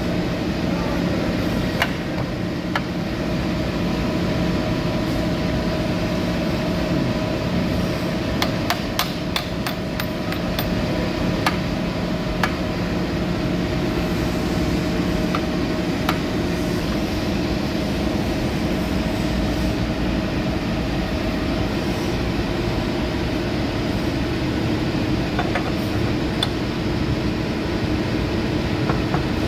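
Steady workshop machine hum with scattered sharp metal taps and clinks as a steel kingpin is worked into a forklift steering axle's bushed knuckle, with a quick run of taps about a third of the way in.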